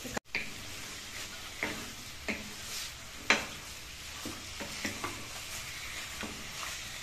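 Wooden spatula stirring chunks of pork in a non-stick wok, scraping and knocking against the pan about eight times, over a steady sizzle. The pork is cooking without oil in its own released water and fat.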